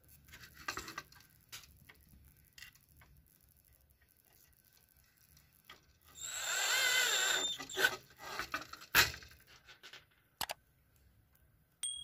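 Plastic housing of a gas heater's control-board kit being closed up and screwed shut: scattered clicks and rubbing, a loud wavering squeal lasting about a second and a half near the middle, then a few sharp knocks.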